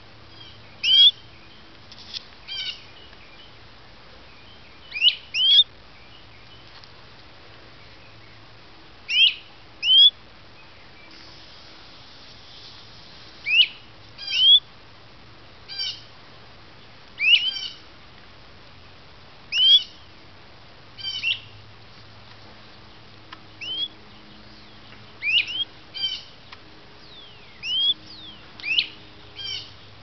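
Nestling songbirds giving short, high, rising begging cheeps, often two in quick succession, repeated every second or two.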